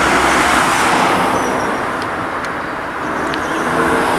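Road traffic: a steady rush of car tyre and engine noise that eases a little midway and swells again near the end.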